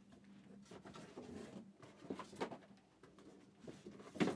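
Light handling noises: scattered soft taps and rustles, with one louder knock near the end, over a faint steady hum.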